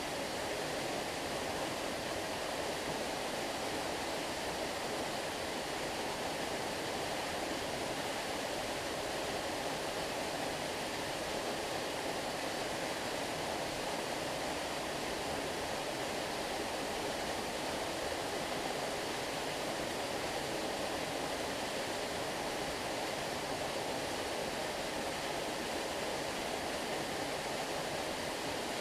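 Small waterfall: a steady, unbroken rush of falling water.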